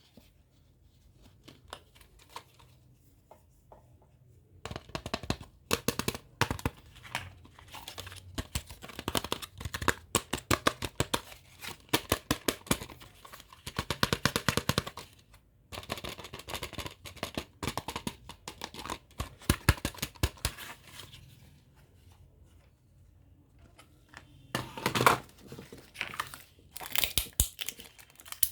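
Packaging being crinkled and torn open by hand: dense runs of crackling and ripping that start about five seconds in, pause briefly, and come back near the end.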